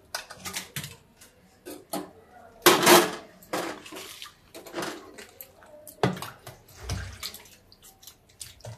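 Water splashing and sloshing in a steel saucepan as hands lift eggplant out of its salted hot-water soak, with knocks of steel pot and bowl; the biggest splash comes about three seconds in.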